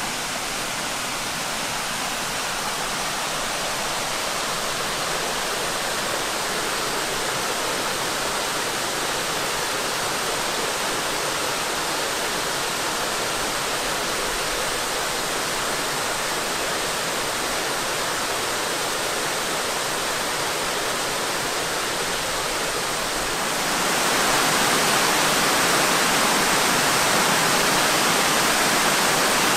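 Virginia Hawkins Falls, a tiered waterfall cascading over rock ledges, rushing steadily. It grows louder near the end.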